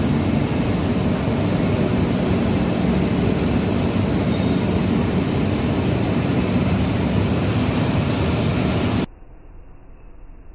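Jet dyeing machine running: a loud, steady machine noise with a low hum and faint steady whine. About nine seconds in it cuts off abruptly to a faint hiss.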